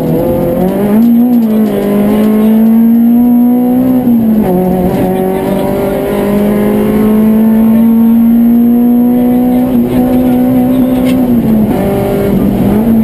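Citroën Saxo rally car engine heard from inside the cockpit, running hard at high revs and pulling up through the gears on a special stage. The engine note climbs steadily and drops sharply at each gear change, about four seconds in and again near the end.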